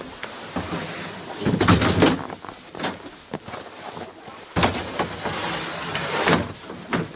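Gear being loaded into the back of a van: knocks and clunks of items set down on the cargo floor, with scraping and rustling as they are pushed in, the longest scraping stretch about four and a half seconds in.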